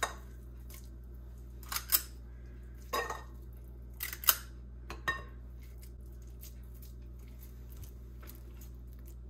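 A metal portion scoop clinking and scraping against a glass mixing bowl: a handful of sharp clinks over the first five seconds or so, then only faint ticks.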